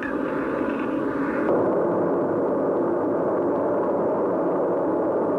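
Steady drone and rush of jet aircraft engines, the tone shifting slightly about a second and a half in.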